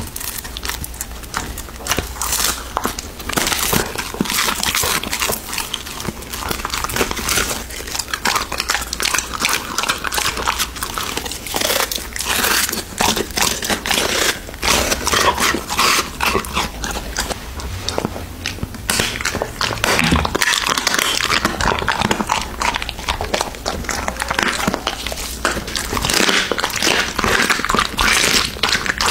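Golden retriever biting and chewing food held to its mouth: a close, dense run of crunches and crackles, first from a crisp treat, then from raw meat.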